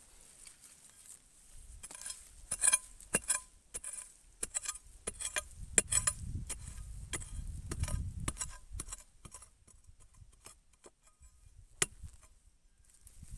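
Metal blade of a long-handled digging tool being driven into dry, rooty forest soil and leaf litter around the base of a shrub clump: a run of irregular clinking strikes and crunches, thickest a couple of seconds in through the middle, then one sharp strike near the end.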